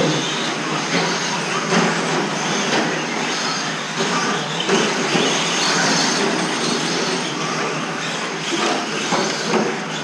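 A pack of 2wd short-course RC trucks racing on a dirt track: the steady mixed noise of their electric motors and tyres on the clay.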